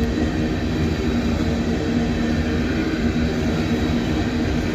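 Freight cars of an empty train rolling past: a steady rumble of steel wheels on the rails, with a faint low steady hum in it.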